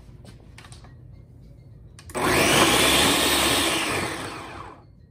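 Ninja countertop blender motor starting abruptly about two seconds in and running loudly as it blends a thick avocado crema, then winding down and fading out near the end. A few faint clicks come before it starts.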